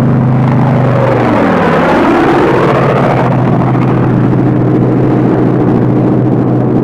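P-47 Thunderbolt's radial aircraft engine droning as a plane peels off into its dive. The engine note dips about one and a half seconds in, glides back up, then holds steady.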